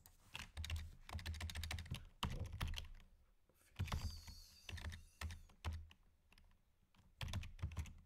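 Computer keyboard being typed on in quick runs of keystrokes with short pauses between them, as code is deleted and retyped.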